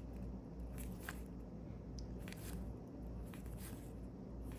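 Panini NBA Hoops trading cards sliding against each other as they are flipped one at a time through a pack: faint, irregular flicks over a low steady hum.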